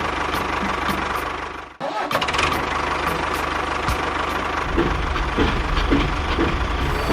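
A small engine running steadily. It cuts out abruptly just before 2 seconds in and resumes, with a heavier low rumble in the second half.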